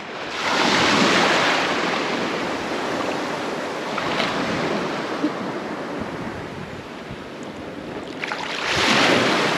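Small waves washing in over shallow water and onto a sandy beach shore, swelling twice: about a second in and again near the end.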